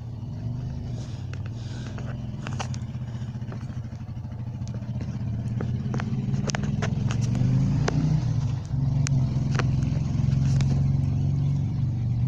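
An engine running steadily close by, getting louder over several seconds, with scattered light clicks and taps over it.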